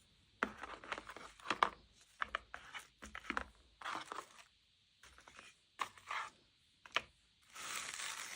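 Toy packaging being handled, crinkled and torn open in irregular short bursts with sharp clicks, then one longer tear near the end.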